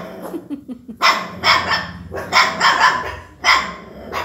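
Dog barking repeatedly: a run of short, sharp barks, several in quick succession with brief pauses between clusters.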